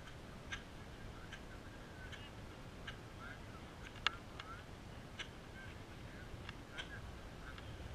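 Faint open-air background noise with scattered soft ticks and a few brief faint chirps.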